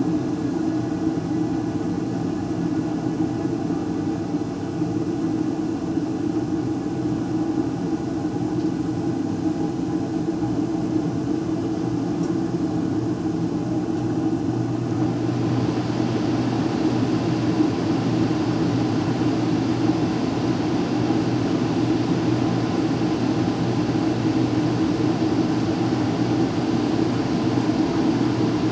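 Household furnace running: a steady hum with a rush of air, and a brighter hiss of airflow comes up about halfway through. No boom in this stretch.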